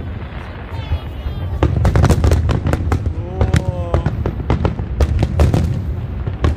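Aerial fireworks display going off: a rapid, irregular series of sharp bangs over a constant low rumble of explosions.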